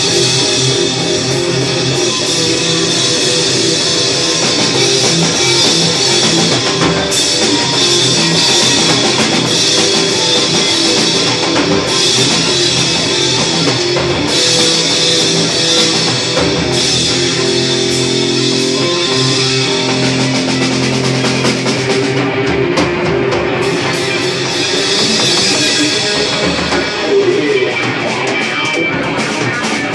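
Loud live punk rock from a band: electric guitars, electric bass and a drum kit playing together without a break.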